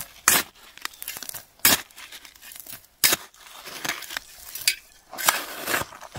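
A short-handled shovel digging into dry, gravelly desert soil: three sharp crunching stabs of the blade into the ground in the first half, then longer scraping and scooping of loose dirt and stones.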